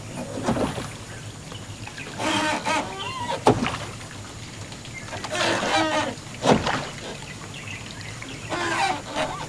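Domestic fowl calling in three bursts of rapid, wavering calls a few seconds apart, with a sharp knock twice in between.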